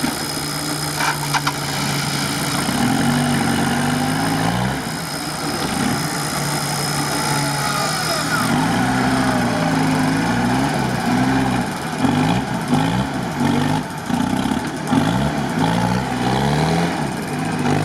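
Toyota Land Cruiser 70-series off-road truck's engine running steadily, then revving up and down in repeated surges as the truck works its way nose-up out of deep sand.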